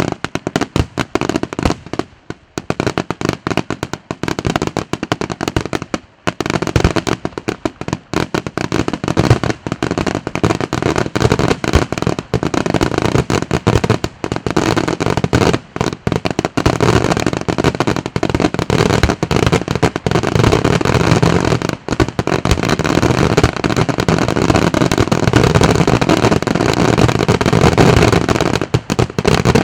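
Aerial fireworks display: a rapid, overlapping barrage of shell bursts and crackling bangs, with a few brief gaps in the first seconds and then growing denser and louder, almost continuous from about halfway through.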